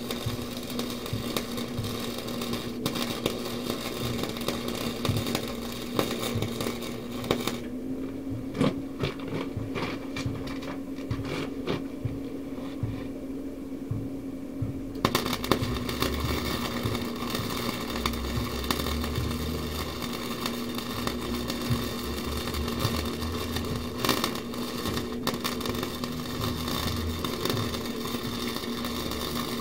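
Wire-feed welder crackling and buzzing over a steady hum as beads are laid on the bumper pieces. The arc stops for several seconds near the middle, leaving only a few clicks, then starts again and runs on.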